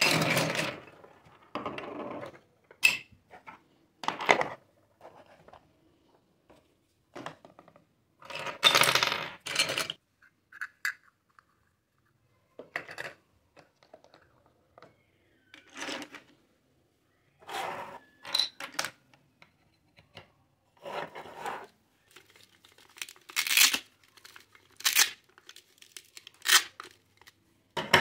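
Plastic toy kitchen pieces (pots, stoves, cups and play food) being picked up and set down on a table: scattered clicks and clatters with pauses between, and a longer rattle about nine seconds in.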